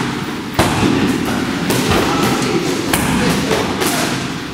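Strikes landing on Thai pads held by a trainer during a Muay Thai pad drill: a series of sharp smacks about a second apart.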